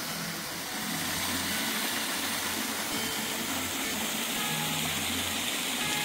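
Small waterfall and creek water rushing steadily, with soft background music.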